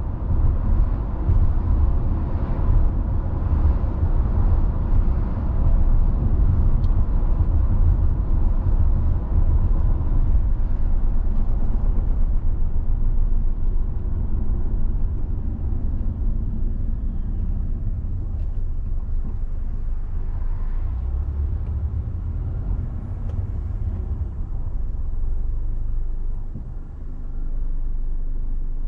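A car driving along a road: a steady low rumble of tyres and running gear. It is a little louder and harsher in the first half, eases off from about the middle, and dips briefly near the end.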